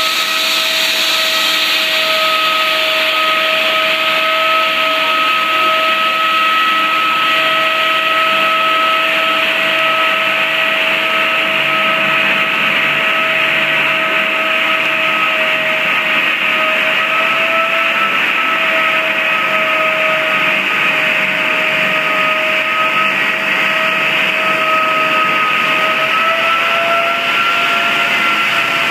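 Wolf 12-VR ceiling blaster with vacuum blast recovery running against a concrete ceiling: a loud, steady rush of noise with a constant whine, which rises slightly in pitch near the end.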